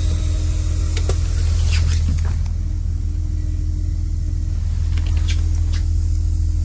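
Thomas Built school bus diesel engine idling, heard from the driver's seat: a steady low rumble with a steady hum above it. A few short clicks come through about a second in, around two seconds in and again near the end.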